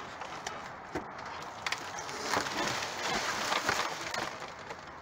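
Cardboard boxes and packaging being shifted and rummaged through in a dumpster: rustling and scraping with a few sharp knocks, busiest in the middle.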